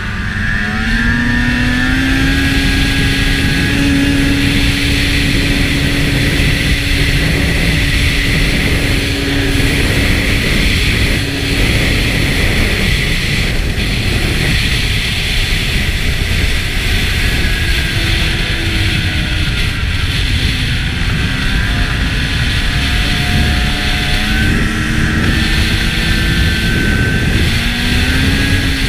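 2003 Ski-Doo MXZ 600's Rotax two-stroke engine under way. It climbs in pitch over the first couple of seconds, holds a steady cruise, eases and picks up again midway, and rises once more near the end, over a constant rushing noise.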